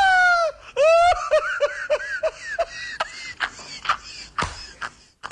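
A high-pitched voice: a held cry that breaks off about half a second in, then a run of quick laughing syllables, followed by a few sharp clicks near the end.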